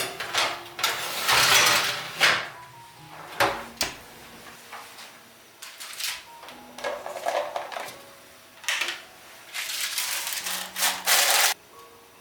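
Kitchen handling sounds during cookie baking: irregular scrapes, rustles and light knocks of utensils and dishes, loudest about a second in and again near the end, over soft background music.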